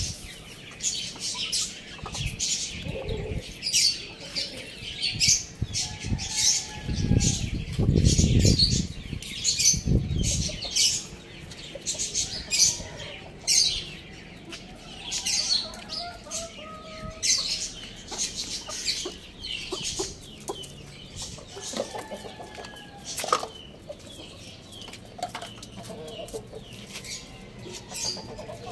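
Chickens (young roosters and a hen) pecking and scratching through dry twigs and scraps on a concrete floor: many quick taps and rustles, with soft clucks now and then. A louder rustling flurry comes about seven to ten seconds in.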